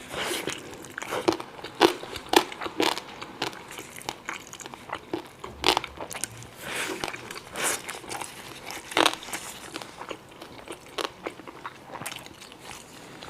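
A person eating close to the microphone: biting and chewing, with irregular crisp, crackly crunches.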